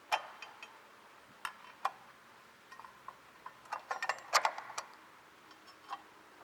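Scattered light clicks and clinks of metal parts being handled and fitted, as a shifter base bracket is worked into the slots of a transmission mount bracket, with a quick cluster of them about four seconds in.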